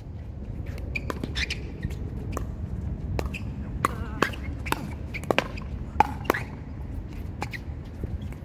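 Pickleball rally: the hard plastic ball is struck by paddles in a quick run of sharp pocks, one to two a second, the loudest near the middle, with short shoe squeaks on the hard court between hits.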